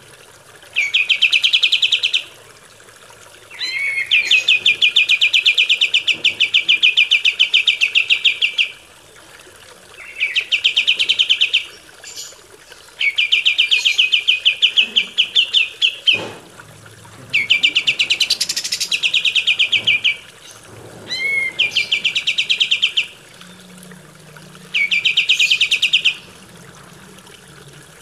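Kapas tembak songbird singing in rapid, high, even trills, repeated in bursts of one to five seconds with short pauses between; a few bursts open with a quick rising note.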